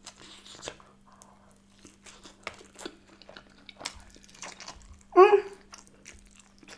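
Close-miked eating: a slice of pizza being bitten and chewed, with soft crunches and wet chewing. About five seconds in comes a short voiced sound from the eater, the loudest moment.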